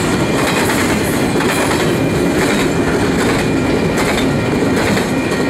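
Double-stack intermodal well cars rolling past at speed: a steady loud rumble of steel wheels on rail, with repeated clacks from the wheels and a faint high whine over the top.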